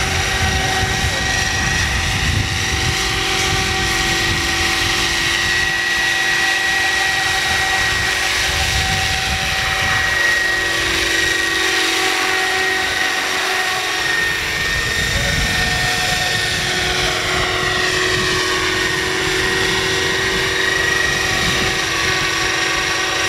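Electric motor and rotors of a Roban Bell 429 scale RC helicopter in flight: a steady high whine over the rotor hum, with faint sweeping tones as it moves about.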